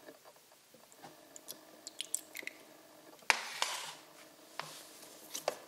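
Handling of a plastic oil jug while oil is poured into a test machine's sample cup: faint drips and small clicks, then a sharp plastic knock about three seconds in with a short rustle as the jug is set down, and a few light clicks near the end.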